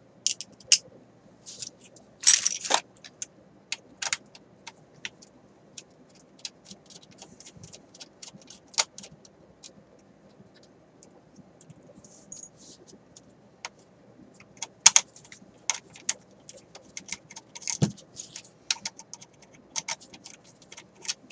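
Small metal tools and parts clinking and rattling, with a denser rattle about two seconds in, then scattered sharp clicks of a screwdriver and metal pieces against a car radio's steel case.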